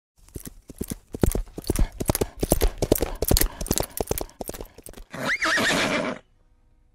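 Horse hooves galloping in quick, irregular beats for about five seconds, then a horse whinnying briefly with a wavering pitch before it stops abruptly.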